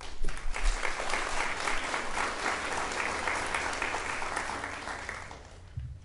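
Audience applauding, starting abruptly and dying away about five seconds in, then a single low thump just before the end.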